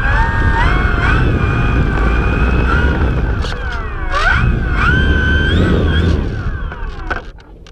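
Electric RC plane's motor and propeller running close up, the whine rising and falling with the throttle over a low rumble as the plane taxis on gravel. About seven seconds in the whine falls away as the throttle is cut and the motor winds down.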